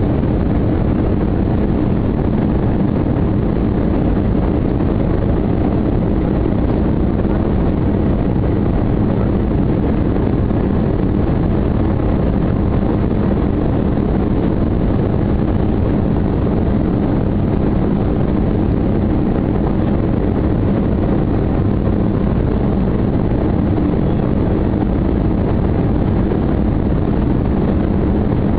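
Steady engine and airflow noise inside an airliner cabin on the landing approach, an even low rumble with no change.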